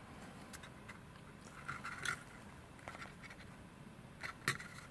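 Faint handling noise: a few light clicks and short scrapes as a freshly demolded carbon fiber part is picked up and turned in the hand.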